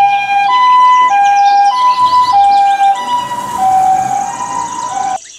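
Japanese ambulance's two-tone electronic siren, a loud alternating high–low "pee-po" with each note lasting about two-thirds of a second. Its pitch drops slightly as the ambulance drives past, and the siren cuts off abruptly near the end.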